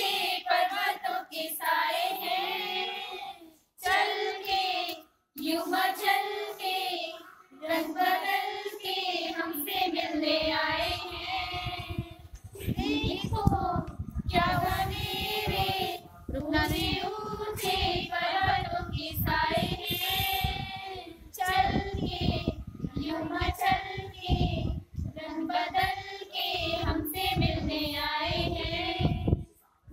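Voices singing a Hindi welcome song together, unaccompanied, in long melodic phrases with short pauses for breath. From about ten seconds in, a low irregular rumble runs under the singing.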